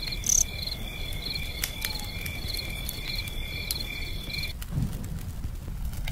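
Insects chirping: a high, regular pulsing trill, about three pulses a second, that stops about four and a half seconds in, over a steady low rumble with scattered faint clicks.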